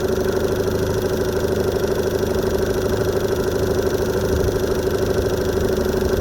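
Evinrude E-TEC 15 hp H.O. two-stroke outboard idling steadily in neutral. It is running hot, a fault the owner puts down to a thermostat that is not opening.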